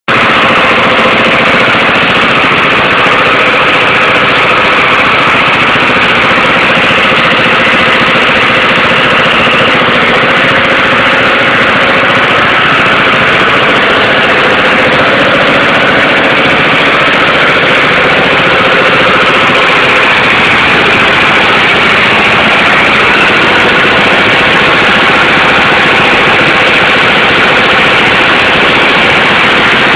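Diesel engine running steadily, loud and close, with a dense knocking clatter throughout.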